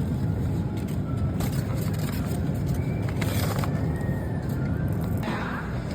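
Steady low rumble of supermarket background noise, with faint voices coming in near the end.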